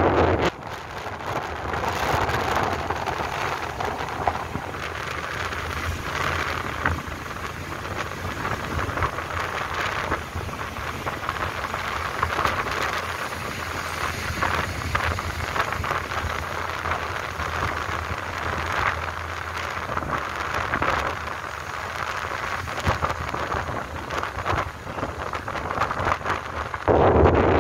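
Wind rushing over the microphone, with road and engine noise from a motorbike riding along a street. The noise drops just after the start and rises again near the end.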